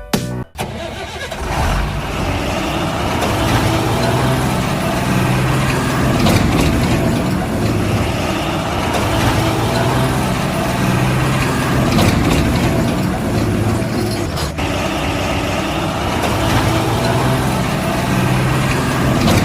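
A vehicle engine running steadily, with a low rumble that swells and eases every few seconds.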